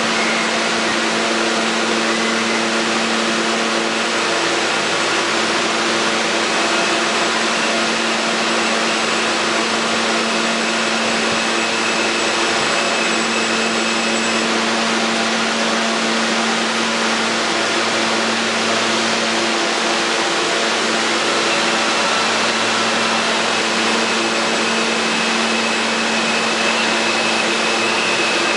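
Steady whirring hum of R160A subway trains, one creeping in to the platform and one standing at the other track, with several steady whining tones that hold without rising or falling.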